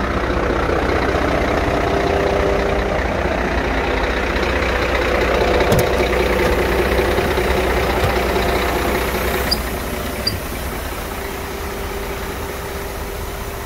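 Scania P114 380 hp straight-six diesel engine idling steadily, a little quieter in the last few seconds. There is one short knock about six seconds in.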